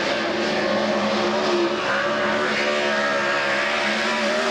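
Dirt late model race car's V8 engine running hard at speed on a qualifying lap, its note rising and falling a little as the car goes through the turns.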